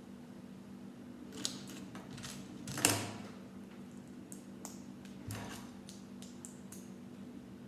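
Small plastic Lego pieces clicking and rattling as they are handled and pressed together: a scatter of short clicks, the loudest about three seconds in.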